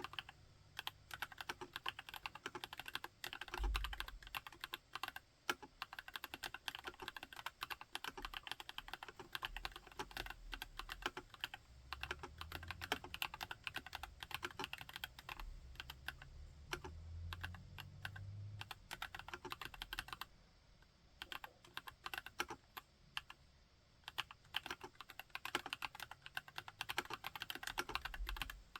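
Continuous fast typing on a TX EO87 r3 tenkeyless mechanical keyboard, a steady stream of keystroke clacks with a few deeper thuds mixed in. The typing thins out briefly a little past two-thirds of the way through.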